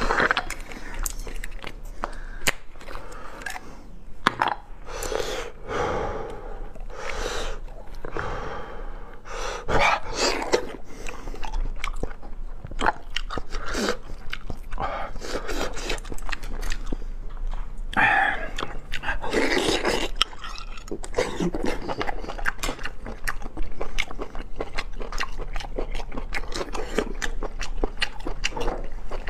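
Close-miked chewing and wet mouth sounds of a man eating large sea snail meat pulled from the shell, with frequent sharp clicks throughout.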